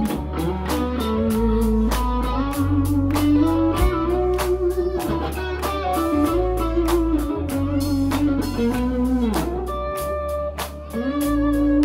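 Live rock band playing an instrumental passage: a lead electric guitar with bending, sustained notes over a bass line and a steady drum beat.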